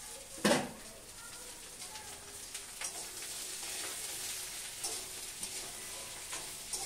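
Potato and kohlrabi pieces sizzling in hot oil with fried onion in a steel wok, a spatula scraping and stirring them every so often. A loud knock about half a second in.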